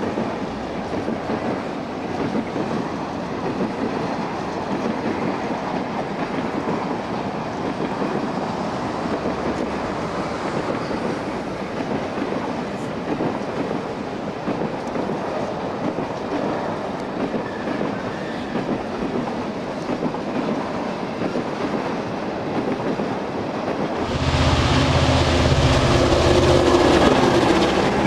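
Rail tank wagons of an oil train rolling past with a steady wheel clatter on the rails. Near the end the sound cuts suddenly to a louder, closer diesel locomotive, its engine a deep steady drone over the rolling noise.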